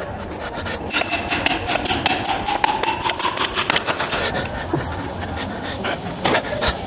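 Hammer tapping repeatedly on the metal hub of a tank return roller, partly through a punch set in the hub: a quick run of sharp metallic taps with a slight ring.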